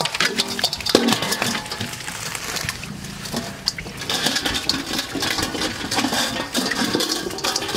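Wet slapping and splashing of live eels writhing in a steel basin after being covered in salt, with many scattered clicks and knocks.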